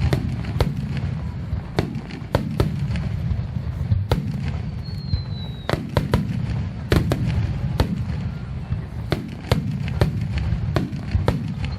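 Fireworks finale: aerial shells bursting in quick, irregular succession, sharp bangs over a continuous low rumble. A high whistle slides down in pitch about five seconds in, and another starts near the end.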